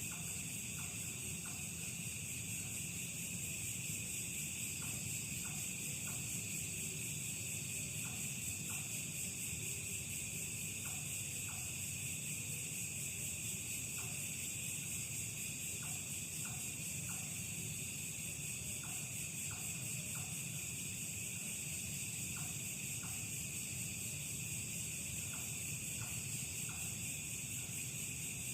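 Steady night chorus of crickets and other insects, with short faint chirps scattered through it, often in twos or threes, and a low steady rumble underneath.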